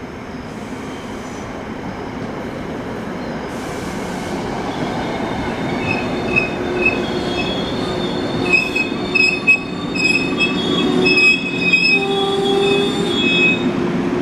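NJ Transit commuter train pulling into the station: the rumble of the passing passenger cars grows louder. From about five seconds in, high metallic squeals come and go as the train slows to a stop.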